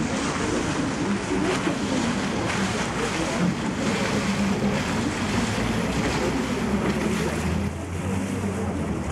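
Motor boat engine running with water splashing and rushing past the hull, and wind buffeting the microphone. A low engine hum becomes steadier near the end.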